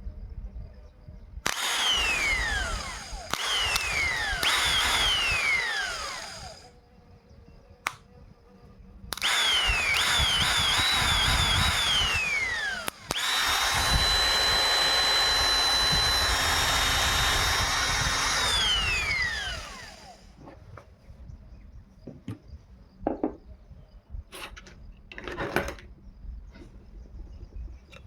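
Small electric motor of a homemade grinder switched on and off in short bursts, whining at high speed. Each time it is switched off, the pitch falls as it coasts down. Later it runs steadily for about five seconds before winding down to a stop, and a few light clicks follow near the end.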